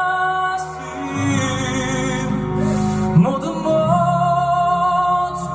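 Male voice singing a Korean ballad over acoustic guitar, holding two long notes with vibrato.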